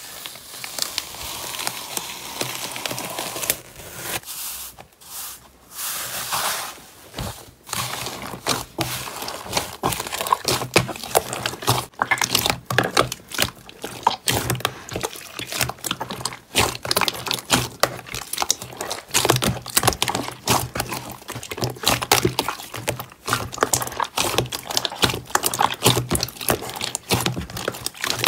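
Slime being handled in a plastic tub: it is peeled, then squeezed, folded and stretched by hand, giving a dense run of small sticky clicks, pops and crackles. The sounds are sparser for the first few seconds and grow thick and continuous from about eight seconds in.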